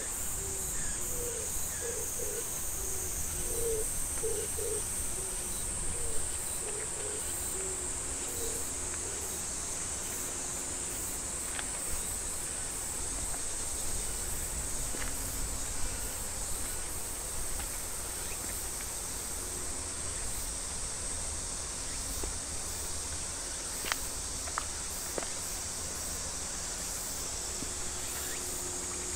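Steady, high-pitched chorus of insects shrilling without a break, with a few short low calls in the first several seconds and a handful of sharp taps.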